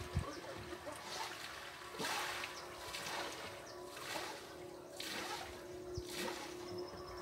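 Water splashing in a slow rhythm, about one splash a second, with a faint steady hum underneath.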